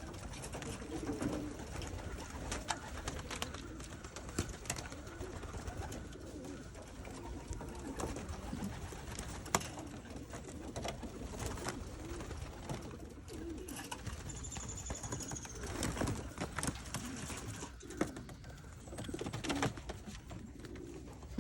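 White doves in their loft cooing on and off, with scattered sharp clicks and taps among them.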